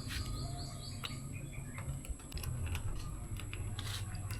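Scattered light clicks and taps from handling doorknob and latch hardware, over a steady low hum and a faint, steady high tone.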